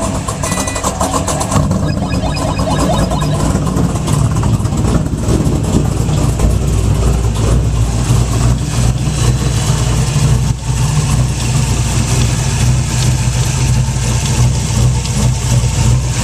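A 2004 Pontiac GTO's LS1 V8, fitted with aftermarket heads and cam, running at idle with a metal-on-metal ticking knock. The owner believes the knock comes from low in the engine, since the lifters on one side looked fine.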